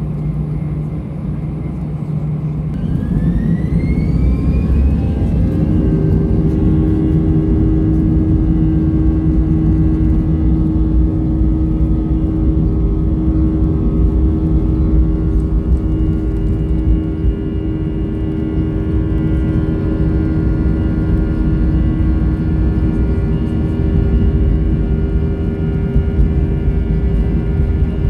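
Airbus A320's CFM56 turbofan engines heard from the cabin spooling up to takeoff thrust. A rising whine starts about three seconds in and settles into steady fan tones over a loud low rumble as the jet accelerates down the runway.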